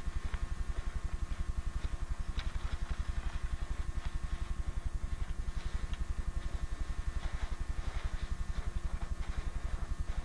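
A steady low hum that pulses about ten times a second, like a small motor running, with a faint steady high whine over it and a few faint clicks.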